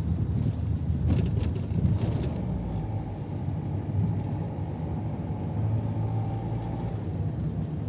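Steady low rumble of a car driving, with a faint engine hum underneath.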